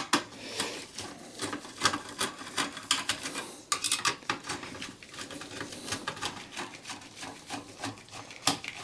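Phillips screwdriver working the screws on a desktop PC's CPU heatsink: irregular light metallic clicks and scrapes, several a second, as the screws are loosened.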